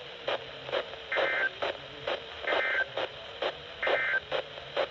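Three short, harsh digital data bursts about a second apart, the EAS SAME end-of-message code, received over NOAA Weather Radio after a Special Marine Warning. Each burst lasts about a third of a second, over steady crackling static pops, about two to three a second.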